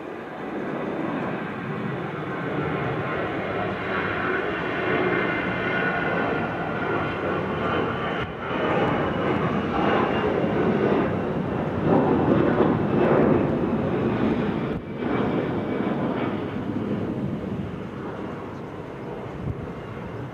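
Jet airliner's engines at takeoff power as it departs and climbs away, a broad roar with a faint whine on top. The roar builds to its loudest about two-thirds of the way through, then eases off, and it drops out briefly twice.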